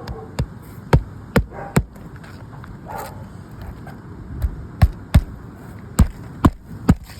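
Hammer driving roofing nails through a new shingle, about ten sharp strikes: four in quick succession in the first two seconds, then six more from about halfway on.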